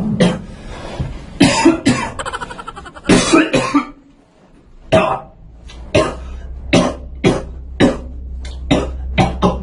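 A man coughing on purpose in short, sharp coughs, warming up for a cough beatbox. The coughs are irregular at first, then come closer together and more evenly spaced toward the end.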